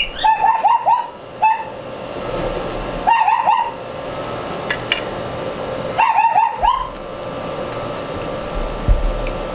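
High-pitched yips from a pet animal, in short bursts of three or four quick notes every few seconds, over the steady whir of a ceiling fan. A low bump comes near the end.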